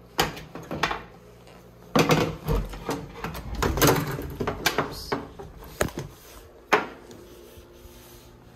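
Hotel room door being worked by its metal lever handle and opened, with clicks, knocks and handling rustle, then a sharp latch click about two-thirds of the way through as it is pulled shut.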